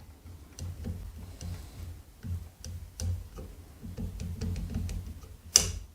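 Faint metallic clicks and ticks of a lever-lock pick working the four brass levers of a Squire 770 padlock under heavy tension, with one sharper click a little before the end.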